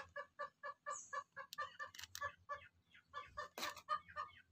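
A chicken clucking faintly in a steady run of short notes, about four a second. One brief knock of something being handled sounds about three and a half seconds in.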